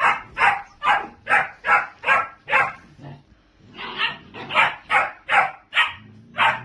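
A dog barking in rapid, regular barks, about two or three a second, in two runs with a short pause between them.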